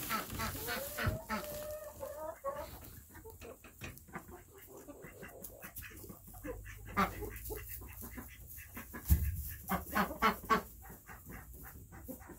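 Chickens clucking in quick short calls, with one longer drawn-out call in the first couple of seconds. Low rubbing and a thump about three-quarters of the way through come from the phone handled against clothing.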